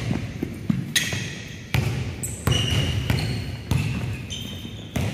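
A basketball bouncing on a hardwood gym floor about five times at irregular intervals, roughly once a second, with short high squeaks of sneakers on the court in between.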